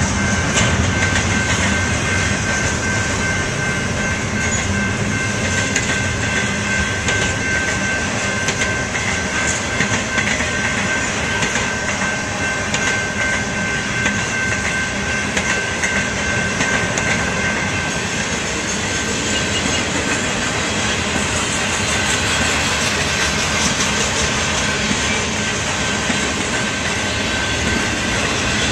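Freight cars of a BNSF intermodal train, double-stack container cars and then trailers on flatcars, rolling steadily past: a continuous rumble with the clickety-clack of wheels over the rail. A thin steady high squeal runs along with it and fades out about two-thirds of the way through.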